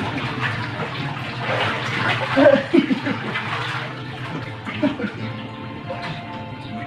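Water splashing and sloshing in a shallow inflatable paddling pool as people move about in it, busiest in the first half.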